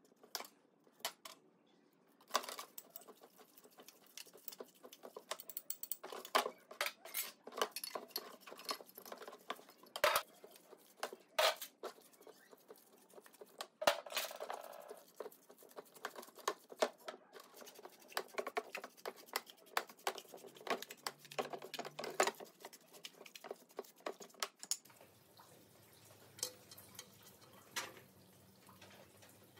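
Irregular clinks, taps and scrapes of metal parts and hand tools being handled during work on an old diesel engine. A faint, low, steady hum comes in near the end.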